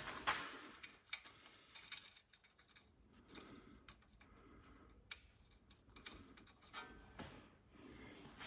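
Faint, irregular metallic clicks and ticks of hand work as a castellated nut is put onto a new lower ball joint's stud, with a sharper click about five seconds in and another about seven seconds in.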